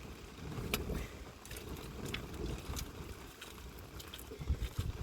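Wind buffeting the microphone as an uneven low rumble, with scattered light clicks and knocks.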